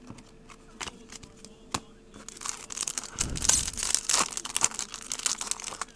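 Foil trading-card pack wrapper crinkling as it is handled and torn, starting about two seconds in, after a few light clicks of cards being handled.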